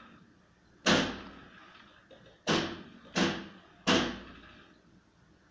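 Four loud, sudden thuds, irregularly spaced, each dying away within about half a second.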